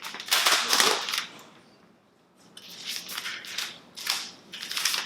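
Packaging being opened and handled, rustling and crinkling: a loud burst about a second long, a brief pause, then a run of shorter crinkles.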